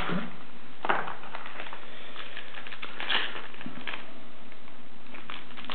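Basketball trading cards being handled and sorted by hand: scattered light rustles and clicks over a steady hiss.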